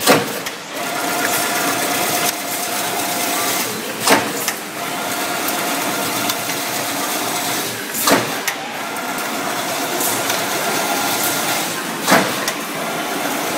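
Automatic chain-link fence machine running: a steady mechanical clatter with a faint hum, and a loud clank about every four seconds as the machine cycles.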